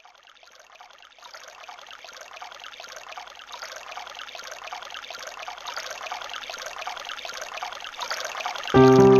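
Trickling, running water fading in from silence and growing steadily louder. Near the end, piano and violin music starts abruptly and is much louder.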